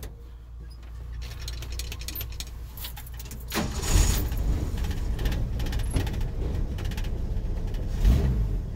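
Pickup truck's engine starting, cold, about three and a half seconds in, then running with an uneven low rumble and a brief rise near the end. The keys hanging from the ignition jingle.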